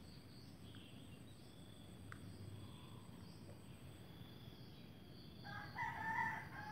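A rooster crows once near the end, a call of about a second and a half, over faint insect chirping.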